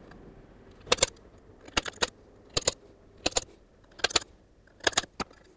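Sharp metallic clicks and taps, about eight of them at irregular spacing, some in close pairs, from a small hand tool marking out hole positions on an aluminium plate.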